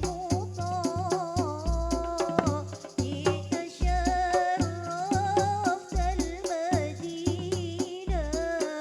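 Music: a wavering, ornamented melody line, sung or played, over a steady beat of deep drum hits.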